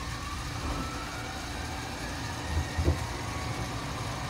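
Tokyu Setagaya Line light-rail car getting under way, heard from inside the car. There is a steady low rumble of wheels and running gear, with a faint whine rising in pitch as it gathers speed. Two short thumps from the wheels come a little before three seconds in.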